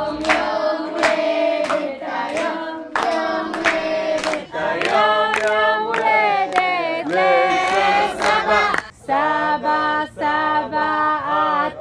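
A group of adults and children singing a birthday song together and clapping in time.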